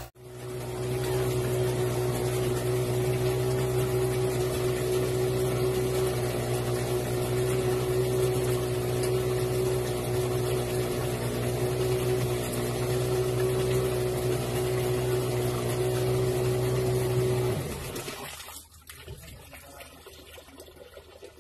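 Honda-engined portable water transfer pump running steadily at a constant pitch, pumping water out of the bilge. It stops about 17 seconds in, leaving only a faint hiss.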